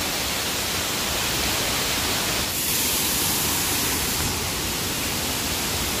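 Steady roar of a large waterfall's rushing water, turning brighter and hissier about two and a half seconds in.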